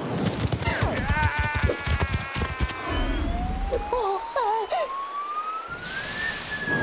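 Cartoon sound effects: a run of low thumps under a brief wavering call, then a long whistle-like tone rising slowly in pitch, and a short breathy puff near the end.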